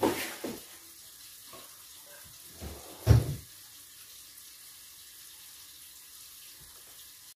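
A sharp knock with a short ring at the start, then a few soft knocks, then one loud dull thump about three seconds in. After that only faint room tone.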